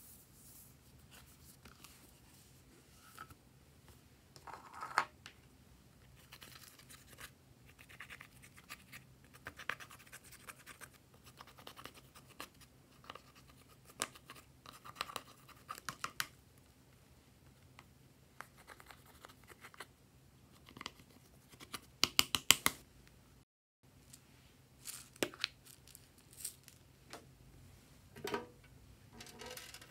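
Eyeshadow being scraped out of a palette's pans with a small tool: light, scattered scratching and crumbling, with a quick run of sharp clicks about three-quarters of the way through.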